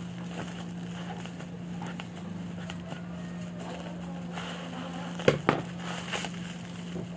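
A shipping parcel's wrapping being torn open and handled: scattered crackling and rustling, with two sharp knocks a little after five seconds, over a steady low hum.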